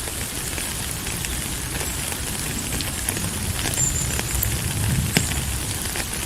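Steady rain, an even hiss full of sharp individual drop ticks, with a low rumble swelling about five seconds in. A brief high, thin whistle sounds once just before the four-second mark.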